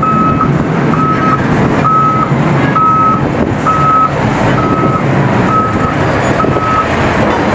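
A heavy machine's reversing alarm beeping at one steady pitch, about once a second, over the running of large diesel mining machinery; the beeps stop near the end.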